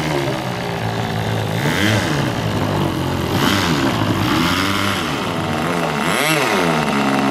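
Engine running steadily, revved up and back down four times in short rises and falls of pitch.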